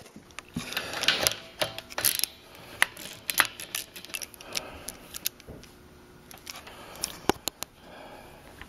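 Scattered light clicks, taps and handling noise of hands and a wrench working the hose fitting at an air compressor's regulator.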